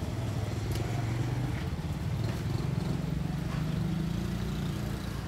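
Street traffic: a motor vehicle's engine running close by with a steady low hum.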